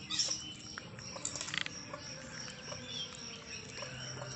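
Outdoor ambience: a steady high-pitched insect trill with scattered short bird chirps and clicks, including a brief burst of chirping about a second and a half in.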